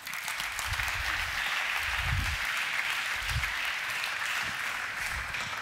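Audience applauding: steady clapping that starts at once and eases off near the end, with a few low thuds underneath.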